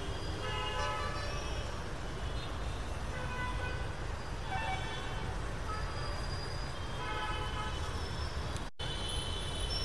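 Road traffic with a steady low rumble and vehicle horns honking in several short bursts. The sound drops out for a moment near the end.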